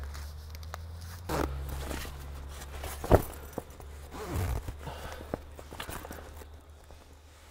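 Heavy pop-up camper canvas rustling as it is lifted and pulled into place at a bunk-end corner, with scattered knocks and one sharp click about three seconds in.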